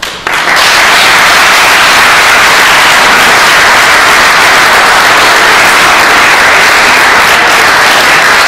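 Audience applauding, a loud, dense clapping that breaks out about half a second in and holds steady.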